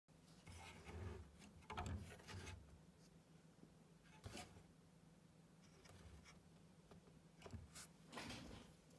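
Faint, intermittent scraping and rubbing of small hand tools being handled at a workbench, in a few short clusters over a low steady hum.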